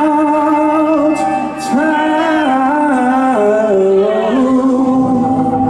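Live rock band playing, with a singer holding long notes that step down in pitch over the band.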